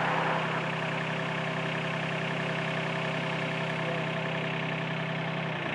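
Diesel engine idling steadily, dipping briefly in pitch near the end.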